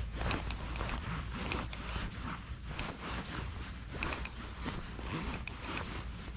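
Footsteps and clothing rustle: irregular crunches and scrapes, several a second, over a steady low rumble.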